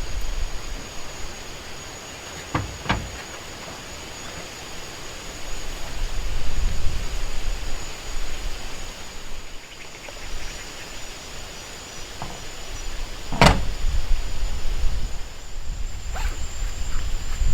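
Low rumbling outdoor noise swelling and fading, with a thin steady high whine throughout and a few sharp knocks, the loudest about thirteen seconds in.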